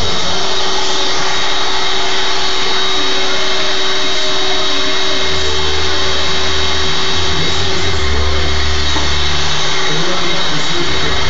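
Vacuum cleaner running steadily, a loud, even motor noise with a constant whine. A deeper rumble swells in partway through and stays for a few seconds.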